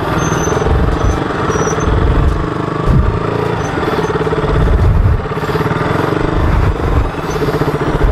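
KTM RC sport bike's single-cylinder engine running at low, uneven revs as the motorcycle picks its way over a rocky dirt trail, with low thumps from bumps and wind on the helmet-camera microphone.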